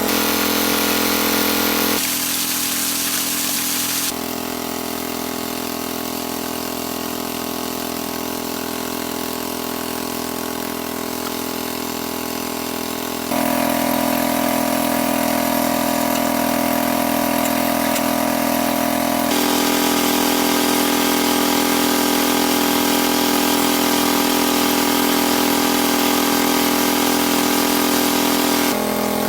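Small engine-driven water pump running steadily, its pitch and loudness changing abruptly several times.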